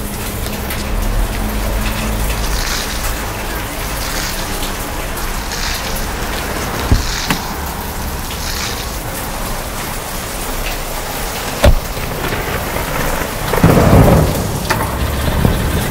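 Rain-and-thunder ambience: a steady hiss of rain with low rumbling underneath, two sharp ticks midway, and a louder swell shortly before the end.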